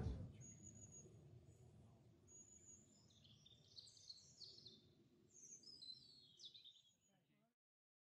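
Faint songbird chirps: a string of short, high, quick notes that come and go, then cut off to silence near the end.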